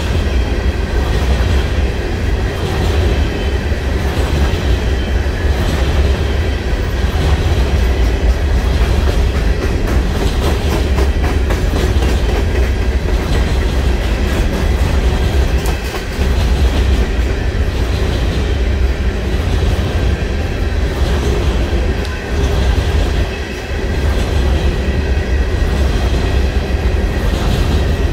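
Freight cars of a loaded coal train rolling past: a loud, steady rumble of steel wheels on the rails with clickety-clack over the rail joints and a faint high-pitched ringing over it.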